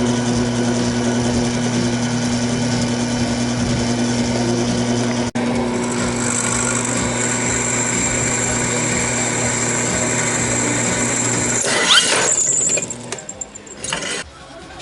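Electric grinder running steadily while grinding the tang of a hardened 5160 spring-steel blade, with a high whine of steel on the abrasive from about six seconds in. The motor shuts off near the end.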